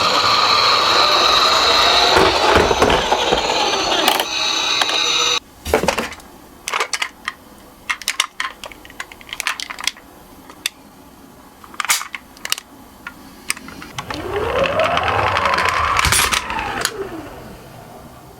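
Miniature toy cars running down a slope track: a loud rolling rattle for about the first five seconds, then many light clicks and clinks of the small cars on the track. Near the end a single tone rises and falls.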